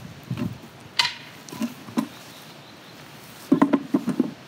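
A board being prised off a tree trunk with a hatchet: a sharp knock, then wood and fastenings creaking and squeaking, with the loudest cluster of creaks near the end as the board comes away.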